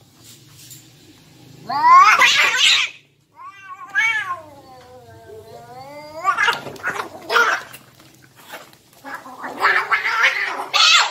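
Domestic cats caterwauling in a fight: a loud rising yowl, then a long wavering yowl that dips and climbs again, followed by rougher, harsher screeching cries.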